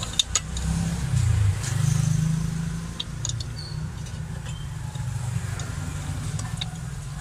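Low rumble of a motor vehicle on the road, swelling as it passes about a second in. Light metal clinks from the metal tea pitcher being handled and poured.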